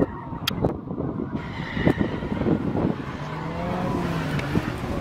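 Distant race car engines running and accelerating, the pitch rising in the second half. Gusts buffet the microphone throughout.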